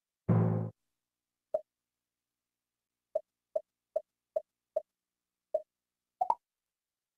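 TiVo DVR menu sound effects: a longer, fuller low tone about half a second in, then short blips as the highlight moves through the menu list, a quick run of five evenly spaced, one more, and a quick two-note blip near the end.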